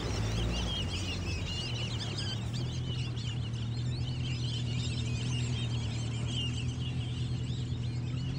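A boat motor runs with a steady low hum under a dense chorus of many birds chirping.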